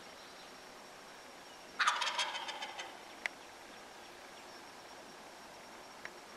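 A wild turkey gobbler gobbles once, about two seconds in: a loud, rapid rattling call lasting about a second that trails off. A short sharp click follows a second later.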